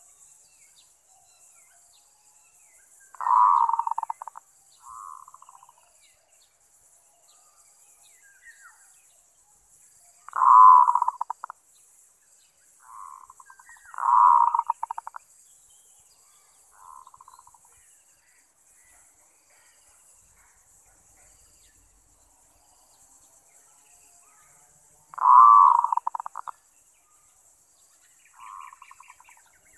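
Zebra dove (merbok) cooing: four loud calls, each a rapid trilling run of short coo notes about a second long that fades away, with softer, shorter coos in between.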